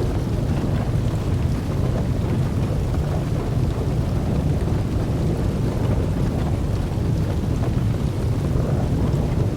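Large fire blazing, a steady low rumbling roar of flames with faint scattered crackles.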